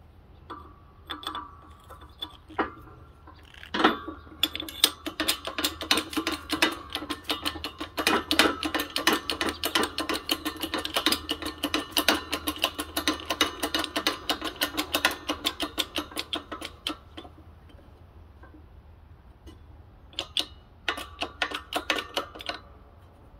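Rapid, light metallic taps, about six a second, each with a short ringing tone, starting about four seconds in and running for some twelve seconds, with a shorter run near the end: a socket used as a driver being tapped to seat a bearing in a scooter's transmission case.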